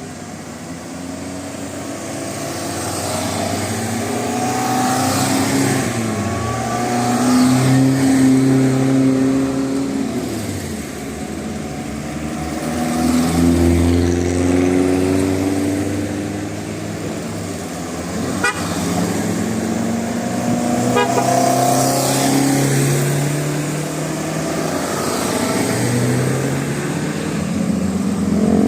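Tour buses passing one after another, their engines rising and falling in pitch as each goes by, with horns honking; these buses carry musical telolet horns.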